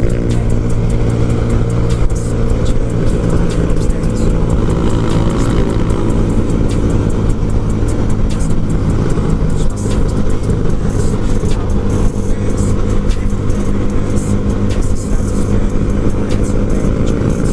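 Yamaha Lagenda 110ZR moped engine, built to a 63 mm spec, running at steady high revs while cruising at speed, with wind buffeting the microphone.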